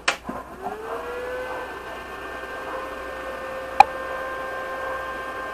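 Mitsuchi inverter welding machine switched on with a click: its cooling fan spins up with a rising whine that levels off into a steady hum. A single sharp click comes about four seconds in.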